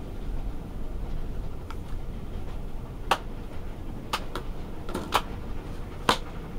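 Railway carriage running with a steady low rumble, its wheels knocking over rail joints every second or so, several knocks in quick pairs.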